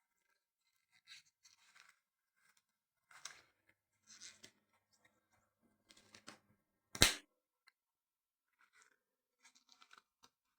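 Scattered short scraping and tearing sounds, with one sharp knock about seven seconds in.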